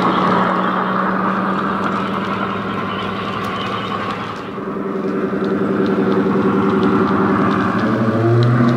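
Model Class 23 'Baby Deltic' locomotive's DCC sound decoder playing a single Napier Deltic diesel engine through its small EM2 speaker, running steadily as the loco moves with its train. The sound dips briefly about halfway, swells again, and a deeper engine note comes in near the end.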